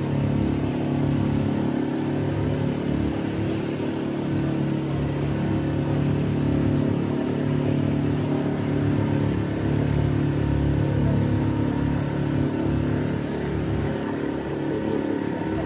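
Engine of a small open tour boat running steadily at cruising speed, an even, low drone with some water and wind noise beneath it.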